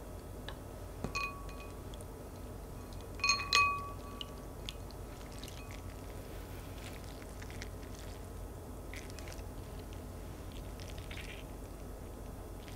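Two short ringing clinks, the second the louder, about a second in and around three and a half seconds in. Later come soft water drips and squishes as soaked sheet gelatin is squeezed out by hand over a bowl of ice water.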